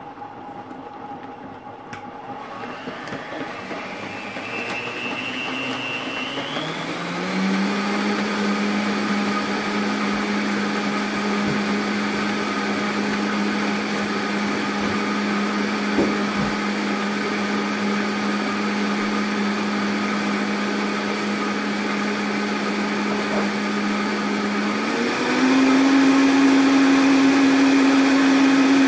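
Vitamix blender motor running a milkshake. It speeds up with a rising whine over the first several seconds, then runs steadily, and about 25 seconds in it steps up to a higher, louder speed.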